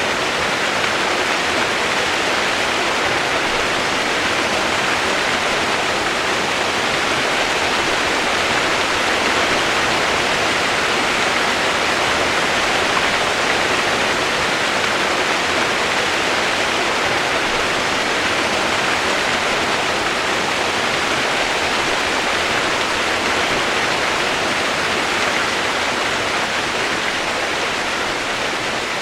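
Steady rushing water, an even unbroken wash of sound with no changes.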